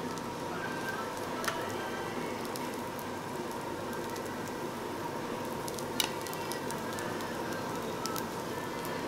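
Food sizzling on a tabletop barbecue grill, a steady crackling hiss, with two sharp clicks a few seconds apart.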